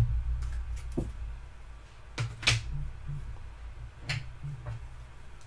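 Small plastic containers being handled and set down inside a clear plastic storage tub: a few sharp plastic taps and knocks, the loudest about two and a half seconds in, over a low rumble.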